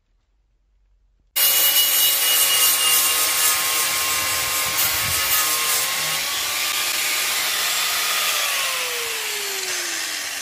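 Corded electric angle grinder grinding metal on the van's rocker panel. It starts suddenly about a second and a half in and runs loud and steady, then is switched off, its whine falling in pitch as the disc winds down near the end.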